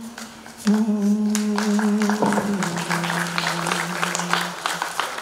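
A male singer holds the long closing notes of a Kannada film song, stepping down in pitch about two seconds in and fading out near the end. Audience applause rises under the last note.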